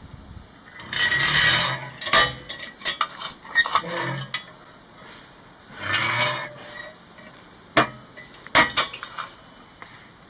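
Metal clanking and scraping with sharp clinks: cast-iron parts of a wood-fired firebox and cauldron being handled. There are two longer scrapes, about a second in and about six seconds in, among a scatter of single clanks.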